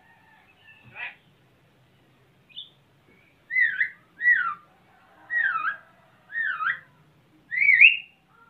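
A pet jalak (starling) whistling: a faint call, then five loud swooping whistles in a row, each dipping and rising in pitch, the last one rising.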